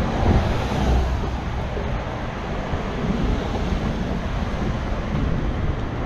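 Wind buffeting the camera microphone, a steady rushing noise with uneven low rumble that surges a little about a second in, over light street traffic.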